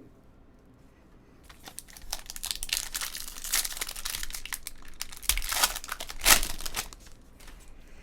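Trading-card pack wrappers crinkling and tearing, starting about a second and a half in and stopping about a second before the end, with two louder crackles near the end.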